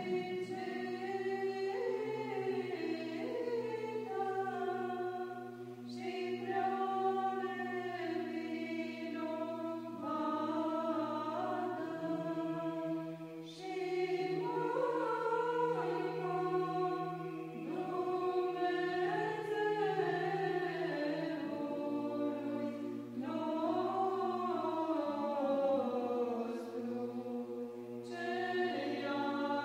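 Choir chanting: a sung melody moving over a steady held drone note, in the style of Orthodox church chant.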